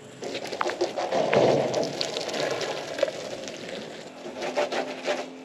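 Water spraying from a handheld shower-hose spray head and spattering against the side of a 4x4: an uneven hiss with scattered crackles, strongest in the first two seconds and easing off after.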